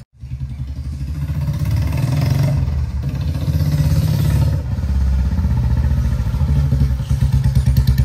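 A Royal Enfield Classic 350 Reborn's single-cylinder engine running loud through a straight pipe, with the catalytic converter removed, as the motorcycle is ridden. The revs rise and fall twice in the first half, then settle into an even, steady beat.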